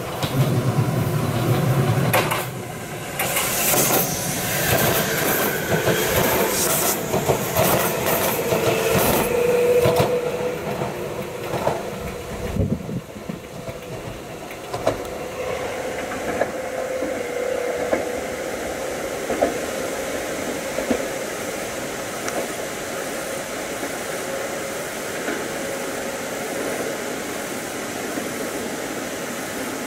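Electric SkyTree Train 634 passing close by as it accelerates after departure, its wheels clicking over the rail joints. After about 12 seconds the train noise drops away, leaving a steady rushing hiss with a faint hum.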